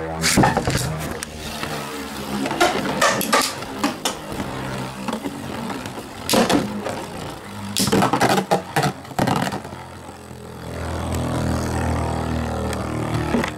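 Beyblade spinning tops clashing: clusters of sharp clacks over a steady whirring hum, with a steadier stretch of whirring near the end.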